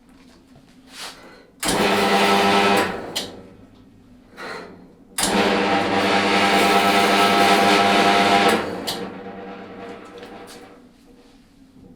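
4x6 metal-cutting bandsaw switched on twice: a short run of about a second, then a run of about three seconds, each starting abruptly and winding down after being switched off. Faint knocks come before and between the runs.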